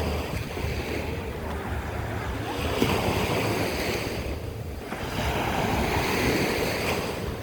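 Sea waves washing in, swelling twice a few seconds apart, with wind rumbling on the microphone.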